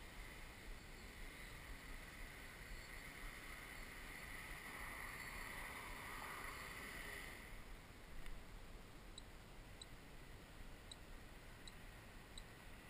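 Faint steady whine and hum of the XAircraft X650V X8 coaxial octocopter's eight motors and propellers while it hovers, louder in the middle and dropping back a little past halfway, over wind rumble on the microphone.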